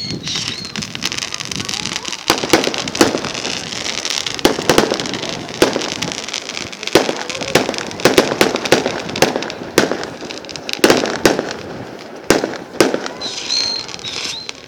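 Fireworks display: aerial shells bursting in an irregular series of sharp bangs, some in quick clusters of two or three, over a steady crackle.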